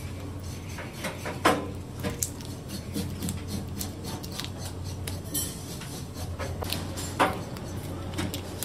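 Irregular clicks and taps as raw whole prawns are handled and cleaned by hand on a plastic cutting board, the loudest about one and a half seconds in and again near seven seconds, over a steady low hum.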